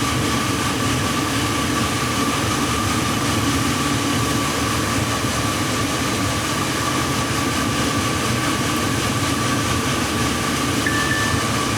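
Cornmeal taco shells frying in a pan with a steady sizzle, a thin steady whine running underneath. Near the end a phone gives a short single-tone text alert.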